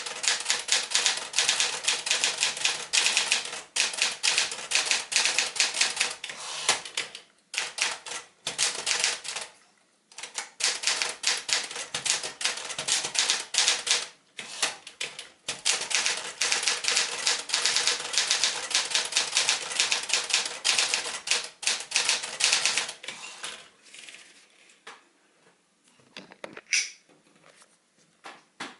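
Sears Constellation manual typewriter, a rebadged Smith-Corona Galaxie, being typed on quickly: a rapid clatter of keystrikes in long runs with a few short pauses. Near the end the typing stops and only a few separate clicks and knocks remain.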